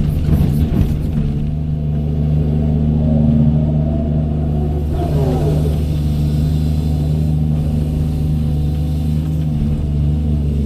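Doosan 210W wheeled excavator's diesel engine running steadily under working load, with some clatter in the first second and a falling whine about five seconds in.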